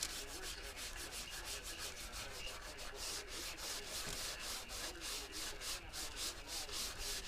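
Sandpaper rubbed back and forth by hand over a car body panel in quick, even strokes, about five or six a second.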